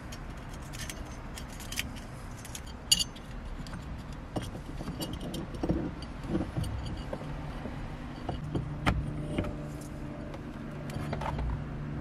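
Small clicks and rattles of a metal steering-wheel short hub and its plastic wiring connectors being handled as the wires are fed through the hub and the hub is worked onto the steering shaft. A low steady hum joins in about two-thirds of the way through.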